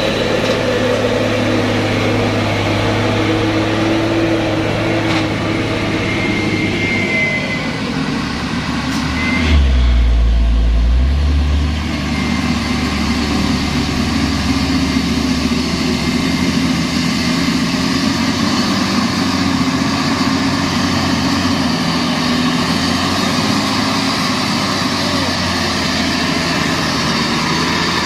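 Diesel engines of heavy trucks, Mitsubishi Fuso among them, running steadily at low speed close by. Around ten seconds in, a deep low rumble swells for about two seconds.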